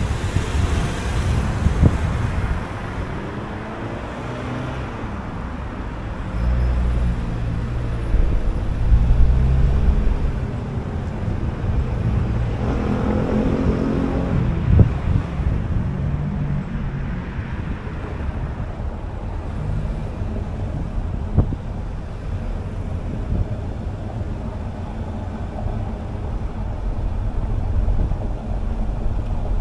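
Car driving on city streets: steady low road and engine rumble with surrounding traffic. A louder vehicle passes about halfway through, its pitch bending as it goes by.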